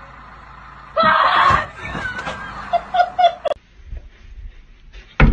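Laughter and voices break out about a second in over a low steady hum, with shorter bursts and a few clicks after.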